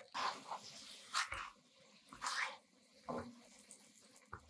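Folded quesadillas frying in oil in a nonstick pan, with a spatula sliding under and turning them: about four short scraping, flopping bursts roughly a second apart over a faint sizzle.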